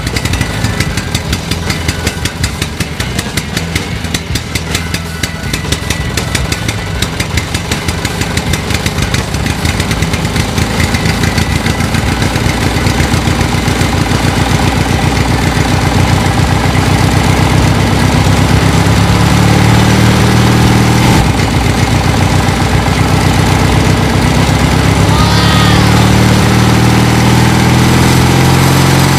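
Mini toy tractor's motor running with a rapid, even chugging, getting louder from about two-thirds of the way in as it pulls the loaded truck.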